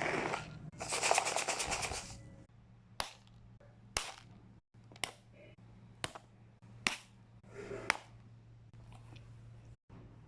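Unboxing and handling of a plastic bead box: a burst of rustling and rapid crackling, then a series of six sharp clicks about a second apart. A faint steady hum runs underneath.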